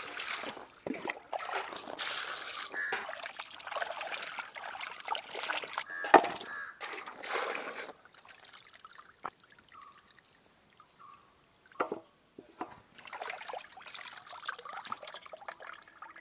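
Water poured from a steel mug into a wide metal basin and splashing as cut fish pieces are washed by hand, with a sharp knock about six seconds in. After a quieter stretch, water drips and trickles as handfuls of washed pieces are squeezed and lifted out.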